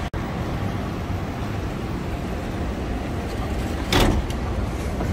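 Steady city street traffic noise, a low rumble of passing cars, with a brief loud rush of noise about four seconds in. The sound drops out for an instant just after the start.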